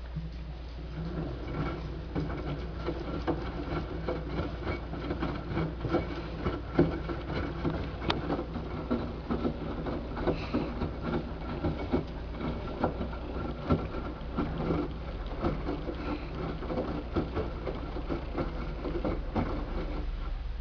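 LG 6Motion front-loading washing machine tumbling a load of towels through its wash. Over a steady motor hum, irregular knocks and clicks come from the turning drum and the wet load, and they grow louder about a second in.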